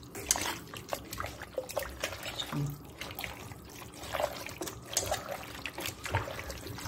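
Hands mixing wet raw mutton pieces with turmeric powder in a metal pot: a run of small, irregular wet squishes and clicks.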